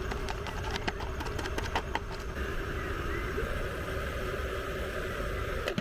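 Stove burner running steadily under a pot of water coming to the boil, with a run of quick small clicks and ticks in the first two seconds.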